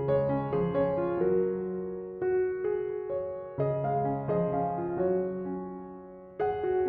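Background music: gentle piano, notes struck and left to fade.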